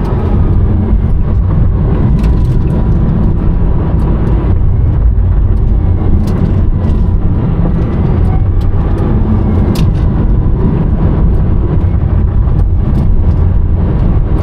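Rimac Nevera electric hypercar on the move, heard from inside the cabin. A loud, steady low rumble of road and wind noise carries a faint whine from its four electric motors, gliding up and down in pitch, with scattered light ticks.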